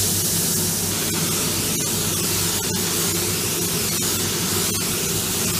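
DeVilbiss GTi Pro Lite gravity-feed spray gun with a 1.4 mm tip, trigger held, giving a steady loud hiss of compressed air as it lays clear coat over metal flake.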